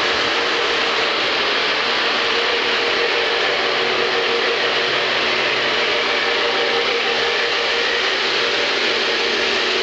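Lionel O gauge three-rail model trains running: a steady rolling noise of wheels on track and electric motors, with a faint steady hum.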